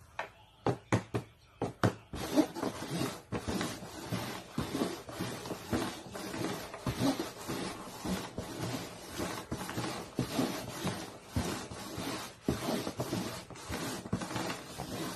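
Red plastic cups being shuffled on a cardboard box: a few sharp taps in the first two seconds, then a dense, continuous run of scrapes and knocks as the cups slide and bump across the surface.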